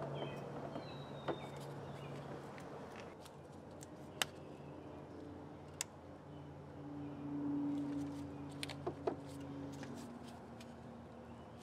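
Occasional sharp clicks and taps of plastic intake parts as the air intake snorkel is fitted back over the engine, over a faint steady hum. A few bird chirps near the start.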